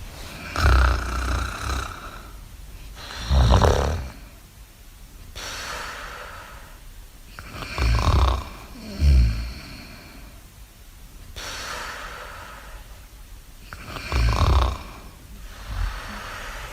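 Snoring sound effect in slow repeating cycles: loud, low, rattly snores on the in-breath, each followed by a softer, breathy hiss on the out-breath.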